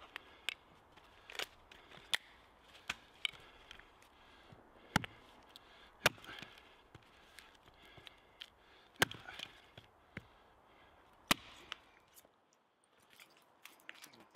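Hatchet chopping and splitting short lengths of wood on a log: sharp strikes at irregular intervals, roughly one a second, some much louder than others. The chopping stops about twelve seconds in, leaving only a few faint knocks near the end.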